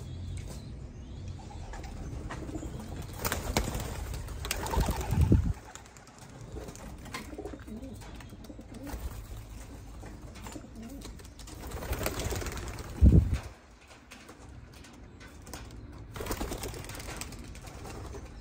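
Racing pigeons cooing and clattering their wings as they come out of the loft, in flurries a few seconds apart. Two short, heavy low thumps, about five and thirteen seconds in, are the loudest sounds.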